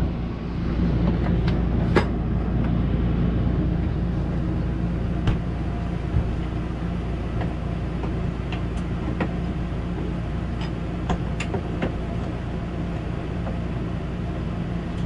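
Steady low mechanical hum of a running appliance, with scattered light clicks and knocks as a TV's metal mount is fitted onto its wall bracket.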